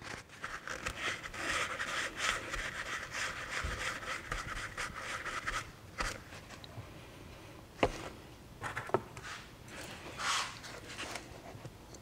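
Shop rag rubbing and wiping over an aluminium engine cylinder head for about six seconds, then a few light knocks and clunks as the head is handled and set down on the bench.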